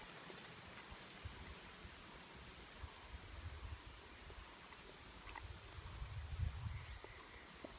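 Insects droning in a steady high-pitched chorus, with a few low thuds underneath.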